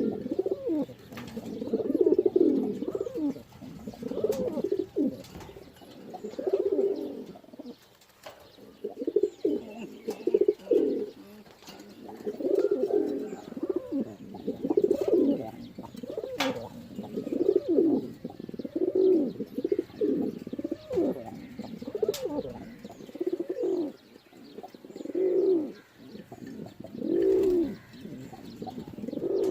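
Pigeons cooing, a low call repeated about every second or two.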